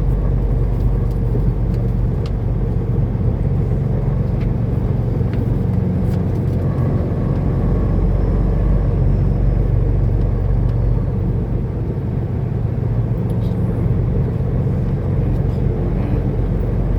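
Steady drone of a semi-truck's diesel engine and tyre noise heard from inside the cab while cruising, with a few faint clicks.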